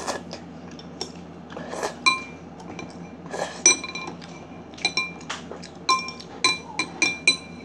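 Eating utensil clinking and scraping against a bowl, a string of light clinks that each ring briefly at the same clear pitch. The clinks are sparse at first and come faster in the second half.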